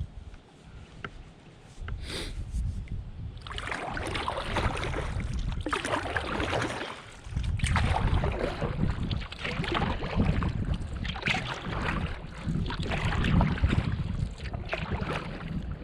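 Kayak paddle strokes swishing and splashing in the water, coming and going every couple of seconds from a few seconds in, over a low rumble of wind on the microphone.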